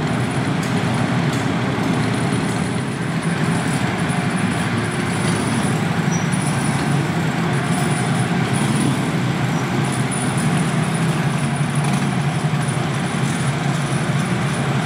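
Steady low engine rumble with a hiss of vehicles boarding a ferry's car deck, as the motorcycle rides on.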